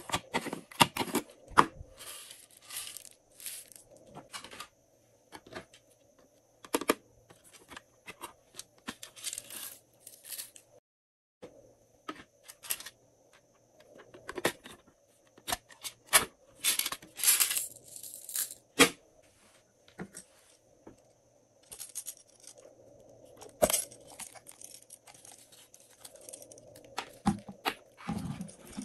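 Glossy slime being stretched, pressed and folded by hand, giving off irregular clusters of sticky clicks, pops and crackles, with a brief silent gap about eleven seconds in.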